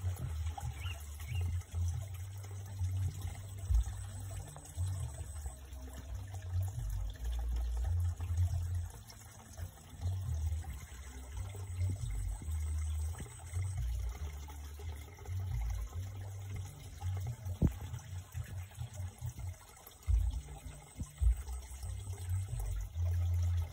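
Shallow stream water sloshing and trickling around wading legs and hands groping in the pool, with an irregular low rumble on the microphone and a few sharp knocks.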